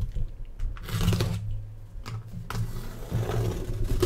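A plastic safety box cutter slicing along the packing tape on a cardboard case seam: scratchy cutting strokes, one about a second in and a longer one around three seconds in.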